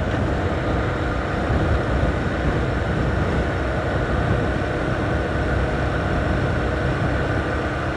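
Motorcycle cruising at a steady speed: wind rushing over the microphone with the engine running underneath, an even, unbroken noise.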